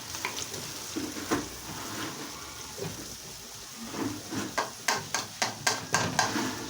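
Fried rice sizzling steadily in a pan as it is stirred; from about four seconds in, a run of quick knocks and scrapes of the spoon against the pan, about four a second.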